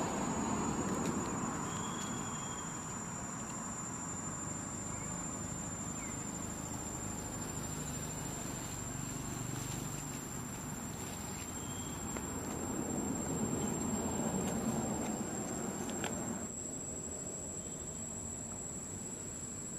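Insects calling, a steady high-pitched drone, over a low background rumble that swells at the start and again about two-thirds of the way through.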